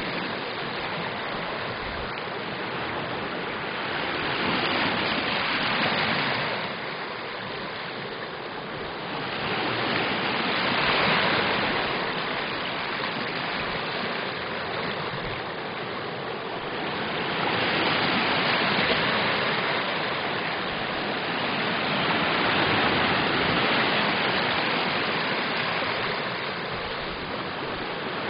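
Small lake waves breaking and washing up over a pebbly sand shore, the rush of water swelling and easing every five to seven seconds.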